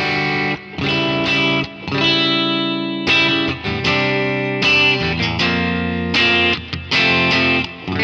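Electric guitar chords played through a Kemper Profiler's '65 Deluxe Reverb V3' amp profile. An AC30 top-boost liquid tonestack has been applied to the profile, with the cut, treble and bass turned up. The chords ring in phrases with several brief breaks between them.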